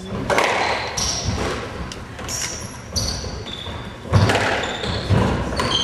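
Squash rally: the hard rubber ball smacked by racquets and hitting the court walls, several sharp strikes roughly a second apart, with rubber-soled shoes squeaking on the hardwood floor between them.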